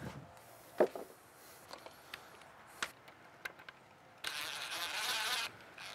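Cordless DeWalt impact driver running for about a second near the end, driving a 3-inch screw into an angled pocket hole in a pine board and stopping partway so the screw is not sent all the way. A few light clicks of handling come before it.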